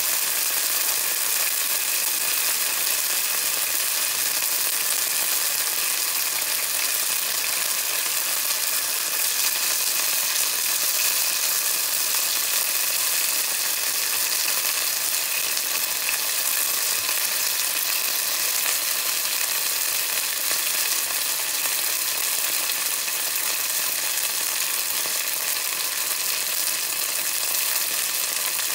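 Green pepper pieces frying in shallow hot oil in a small pan: a steady, even sizzle with no breaks.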